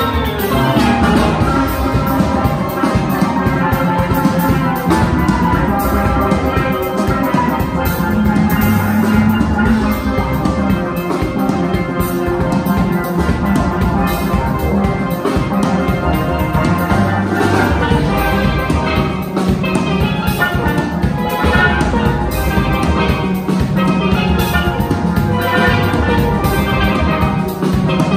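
Steelband ensemble playing: tenor, double tenor and cello steel pans struck in fast runs of ringing notes over a drum kit keeping a steady beat.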